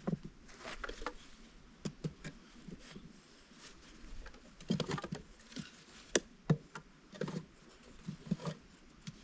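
Scattered light clicks, taps and rustles of hands handling a cracked log hive section and a piece of wire, in irregular clusters.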